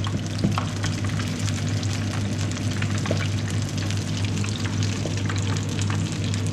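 Battered fish pieces deep-frying in hot oil: a steady sizzle with many small crackles and pops, over a steady low hum.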